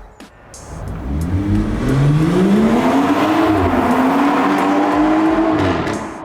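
BMW B58 3-litre turbocharged straight-six under acceleration, heard through its exhaust. The engine note climbs steadily, dips briefly about three and a half seconds in, then holds and fades away near the end.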